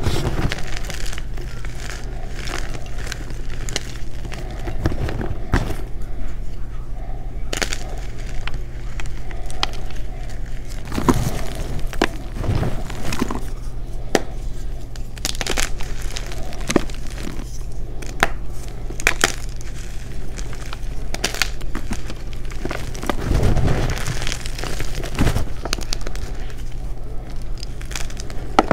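Bare hands crushing and squeezing blocks of gym chalk, giving a run of irregular sharp crunches and crumbling, with a steady low hum underneath.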